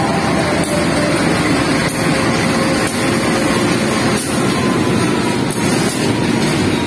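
An arriving passenger train, a KAI diesel-electric locomotive and its carriages, rolling slowly past at close range. A loud, steady engine and running-gear rumble is broken by sharp clacks about once a second, with a faint whine partway through.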